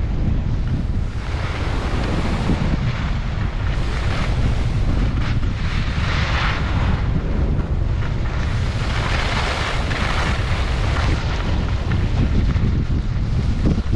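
Wind buffeting the microphone: a heavy, steady low rumble, with swells of hiss every few seconds.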